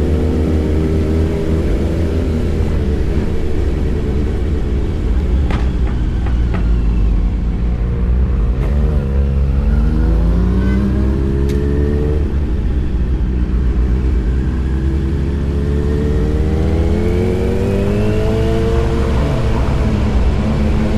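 Big sport motorcycle engine running while being ridden, its pitch climbing steadily as it accelerates, dropping about nine seconds in, then climbing again and falling back near the end, over a steady low rumble.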